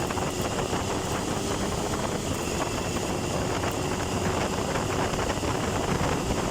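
Triumph Tiger 1050's inline three-cylinder engine running steadily at an even pace, mixed with wind noise.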